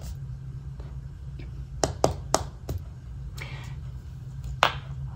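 A long-coat miniature dachshund puppy chewing on a toy: scattered sharp clicks of its teeth, three close together about two seconds in and a louder one near the end, over a low steady hum.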